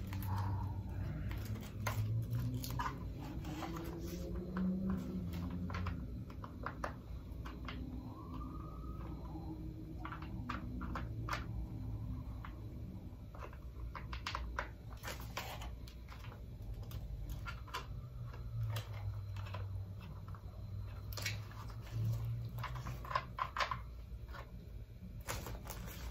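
Scattered quiet clicks and knocks of an airsoft rifle's plastic and metal parts being handled, over a steady low hum.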